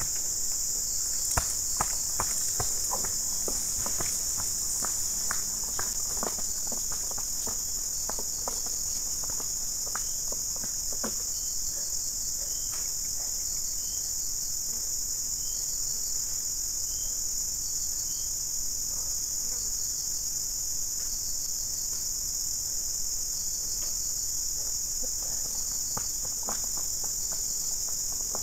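Steady high-pitched insect chorus droning without a break. Scattered light clicks and knocks come over it, most in the first dozen seconds, from a loaded wheelbarrow being pushed over rough ground.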